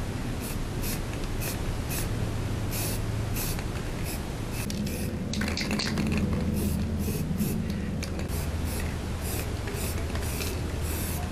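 Aerosol can of Bosny acrylic spray paint sprayed in a rapid series of short hissing bursts, a few a second, with a brief pause about five seconds in.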